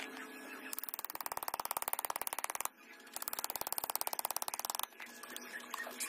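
Rapid, even clicking in two bursts of about two seconds each, with a short break between them.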